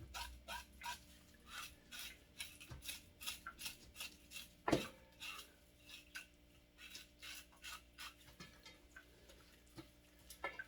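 Scales being scraped off a fresh fish in short repeated strokes, a few a second, with one louder knock about five seconds in.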